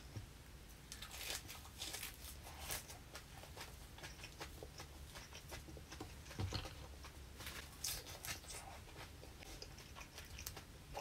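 Fresh herb leaves rustling and snapping as they are picked off their stems by hand, mixed with close chewing, heard as scattered small crackles with a soft thump about six and a half seconds in.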